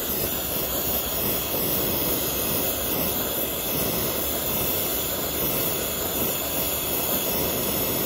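Oxy-fuel brazing torch burning steadily, an even rushing roar from the flame as it heats a 3/8-inch copper refrigerant line to cherry red for brazing.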